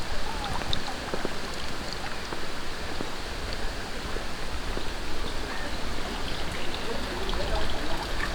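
Mountain valley stream rushing over rocks, a steady wash of water.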